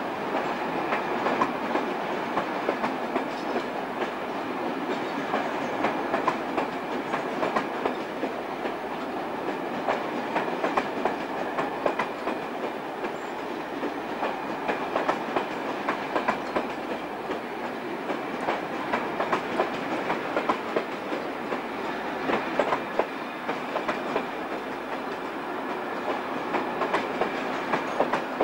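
A passenger train of Deutsche Reichsbahn coaches rolling through the station tracks, the steel wheels clattering over the rail joints and points in a steady, irregular clickety-clack.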